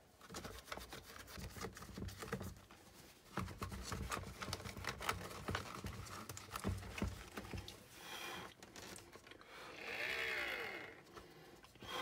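Small clicks, taps and scrapes of hands handling a plastic space-heater housing and its wiring. A louder, drawn-out rustling sound comes about ten seconds in, with a slight rise and fall in pitch.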